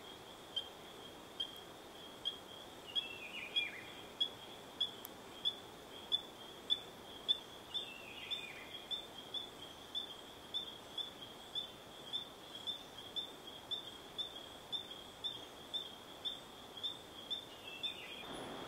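An animal calling a short high note over and over, at first a little more than once a second and quickening toward the end. A falling trill comes twice, about three seconds in and about eight seconds in, over a faint background hiss.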